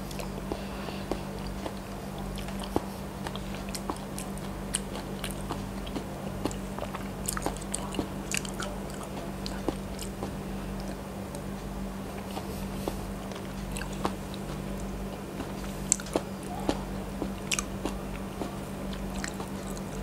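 Close-miked chewing and mouth sounds of eating soft, sticky Thai desserts: many short, sharp mouth clicks scattered throughout, over a steady low hum.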